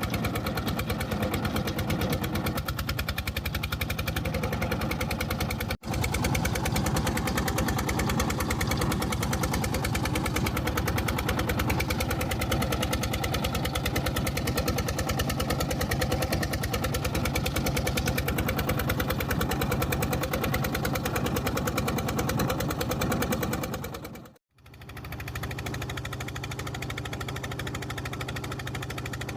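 Jiangdong 24 HP single-cylinder diesel engine of a motorboat running steadily with a fast, even chugging beat. It breaks off for a moment about six seconds in, and again near the end, after which it carries on a little quieter.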